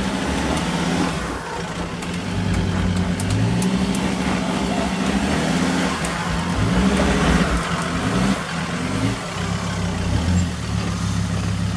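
Troller 4x4's diesel engine revving up and down under load as it crawls up a steep rutted dirt climb.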